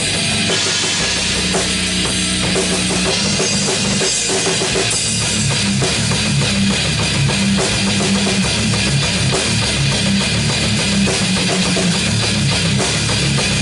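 A metal band playing an instrumental song: drum kit with bass drum, bass guitar and distorted electric guitar through a Marshall amp stack, loud and dense.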